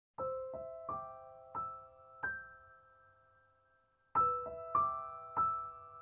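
Background piano music: a sparse melody of single notes struck one after another and left to ring. It fades out about three seconds in, and a new phrase starts about a second later.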